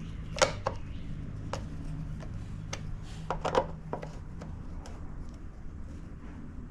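Scattered sharp metal clicks and knocks of hand tools, screws and engine parts being handled during reassembly of a small engine. The loudest knocks come about half a second in and around three and a half seconds in, over a low steady hum.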